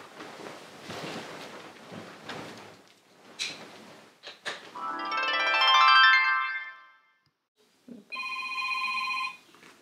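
Soft rustling noise, then a swelling musical chord that rises to a loud peak and fades away. After a moment of silence, a phone ringtone rings with steady electronic tones near the end.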